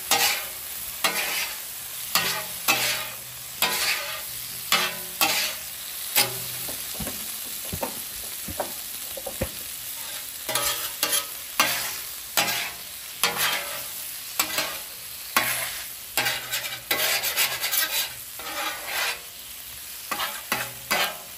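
Steel spatulas scraping and clacking on a Blackstone griddle's flat steel top, turning and piling shrimp, over a steady sizzle of shrimp frying in butter. The strokes come in irregular runs, with a lull of a few seconds about a third of the way in.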